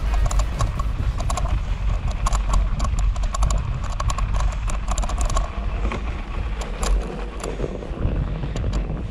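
Kona Big Honzo plus bike ridden over packed snow, its tyres crunching and its parts rattling and clicking, with wind rumbling on the microphone. The clicks come thick for the first five seconds or so, then thin out.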